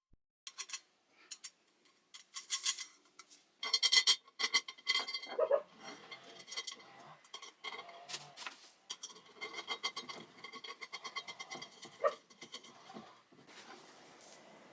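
A run of light clicks, clinks and knocks of small hard objects being handled and set down, with a cluster of louder strikes about four seconds in and a single knock near the end.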